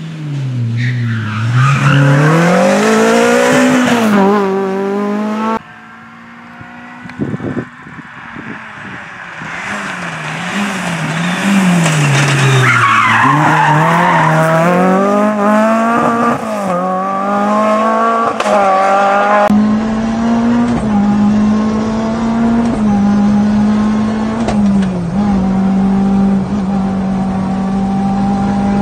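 Renault Clio Ragnotti rally car's 2.0-litre four-cylinder engine revving hard, rising and falling in pitch as the car twice approaches and slides past on gravel, with tyres skidding on the loose surface. About two-thirds of the way through it is heard from inside the cabin, running at steady high revs with a few brief dips in pitch.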